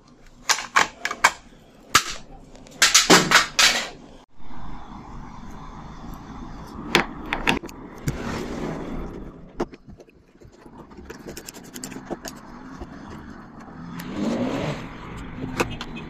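Sharp plastic clicks and knocks as the hinge cover is pried off the top of a refrigerator cabinet. Then a steady mechanical noise, with a short rising whine near the end, as a driver with a socket bit works the bolts of the fridge's top door hinge.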